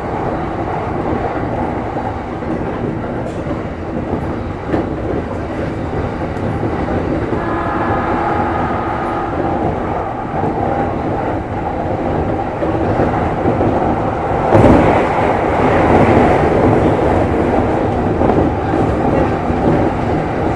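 Electric commuter train running at speed, heard from inside the front car: a steady rumble of wheels on rail. About eight seconds in a brief whine of several steady tones rises over it, and about fourteen and a half seconds in the noise turns suddenly louder for a few seconds.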